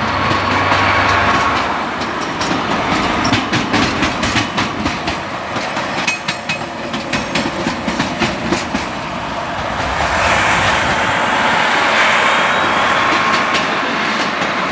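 Freight train rolling through a rail yard, its wheels clattering over rail joints and points, with a dense run of rapid clicks through the middle.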